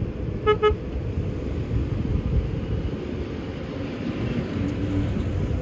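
Two short car horn toots, the signal to start the pull, then a Jeep Wrangler's engine running steadily as it takes up the recovery rope to drag a stuck pickup out of sand. Wind rumbles on the microphone throughout.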